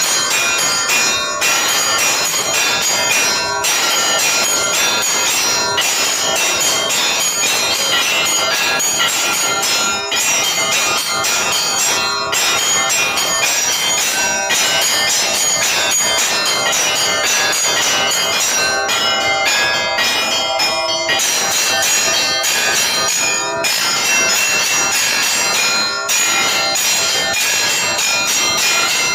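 Russian Orthodox church bells rung in a continuous peal: several bells of different pitches struck in quick succession, their ringing overlapping without a break.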